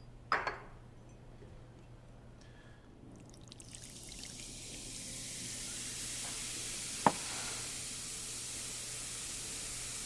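Cola fizzing and foaming up out of a can with a straw in it, an even hiss that builds after a few seconds and then holds steady. There is a single sharp click about seven seconds in.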